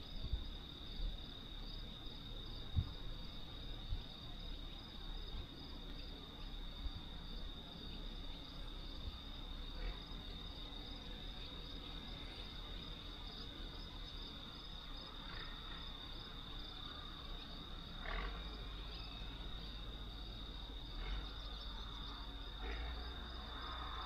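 Crickets chirping in a steady, continuous high trill, with a second, pulsing chirp just above it. A low rumble underneath grows louder over the last few seconds.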